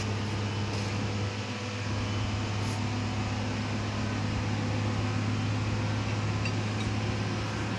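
Steady low machine hum with a constant drone, unchanging throughout.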